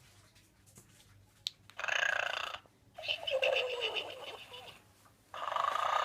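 Gund Arnold snoring pig toy playing its snore: a breathy in-breath about two seconds in, then a longer out-breath that falls in pitch, with the next in-breath starting near the end.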